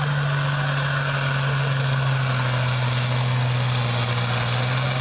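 An International Harvester pulling tractor's engine running flat out under full load against the sled, with heavy black smoke from the stack. It is a loud, steady drone whose pitch sags slightly about half a second in and then holds.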